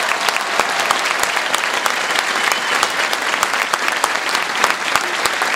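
A large audience applauding: a dense, steady clatter of many hands clapping.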